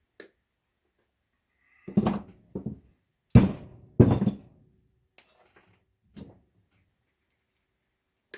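Several sharp knocks and clatters from scrap dishwasher parts being worked on a bench: a pair of knocks about two seconds in, two louder ones close together a little later, and a last faint one near the end.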